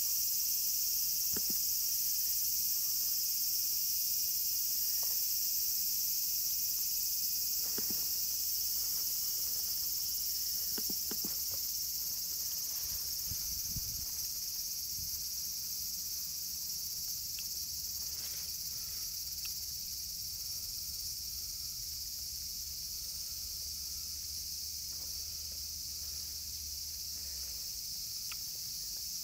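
Steady high-pitched chorus of insects chirping outdoors, unbroken throughout, with a few faint soft knocks of handling close by.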